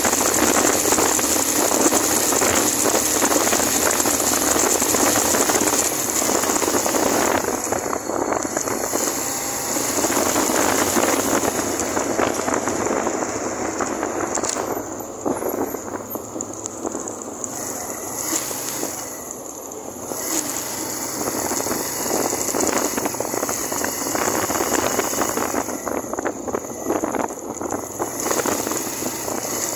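Wind rushing over the microphone of a moving Suzuki GN125 motorcycle, a steady hiss with the bike's single-cylinder four-stroke engine running faintly underneath. The rush eases off for a few seconds around the middle and again near the end.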